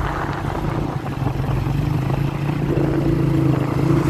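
Motorcycle engine running steadily under way, with wind and road noise. Near the end a truck's engine grows louder as the truck comes alongside.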